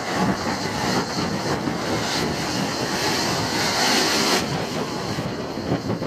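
JR West Special Rapid Service electric multiple unit passing at speed through a station: a steady rush of wheels on rails that drops away suddenly about four and a half seconds in as the last car goes by.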